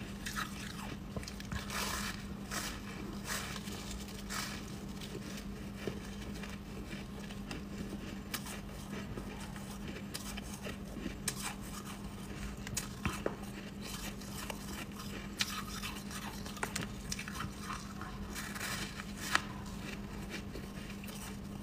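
Crunchy chunks of frost and shaved ice being bitten and chewed: irregular crisp crunches, some sharper than others, over a steady low hum.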